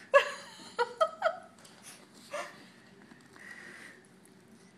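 Yorkie-Silkie mix puppy giving about five short, high yaps in the first couple of seconds, some falling in pitch, as it plays at kissing a face that blows at it; a soft puff of breath follows a second later.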